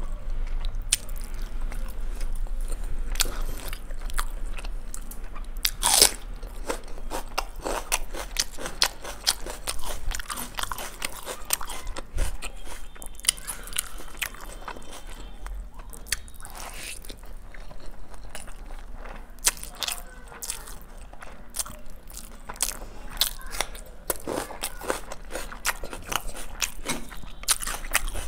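Close-miked eating of biryani by hand: chewing and biting with many small sharp clicks throughout, and fingers working through the rice on the plate.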